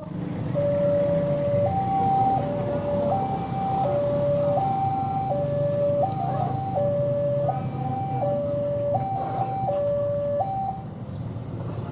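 Railway level-crossing warning alarm: an electronic two-tone signal that alternates evenly between a lower and a higher note, each note lasting a little under a second, warning of an approaching train as the barriers come down. A low rumble of passing motorbike and car traffic runs underneath, and the alarm stops about a second before the end.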